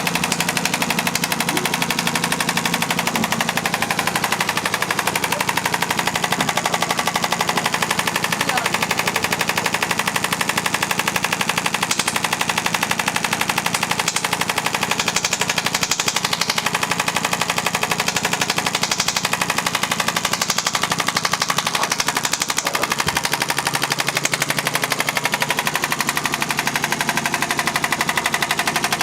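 Radial shockwave therapy applicator firing a rapid, steady stream of sharp clicking pulses against the patient's upper back, over a steady hum.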